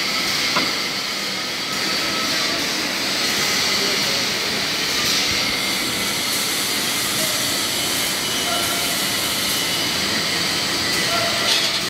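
Toilet-paper rewinder (ICM Makina FLEX PRO 2800 S) running in production: a steady mechanical whir and hiss of rollers and paper web, with a faint steady high whine and a small click about half a second in.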